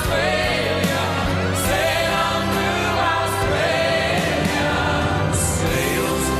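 Music: a song with voices singing over a steady instrumental backing.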